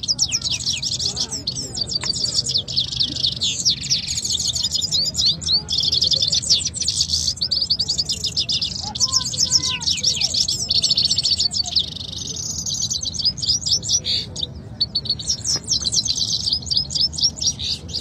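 Two caged canaries singing against each other: fast, high rolling trills and chirps running almost without a break, pausing only briefly twice in the second half.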